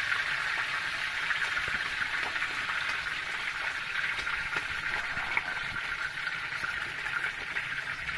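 Marinated queenfish fillets sizzling in a pan, a steady frying hiss, with a few light clicks as a spatula moves the fish.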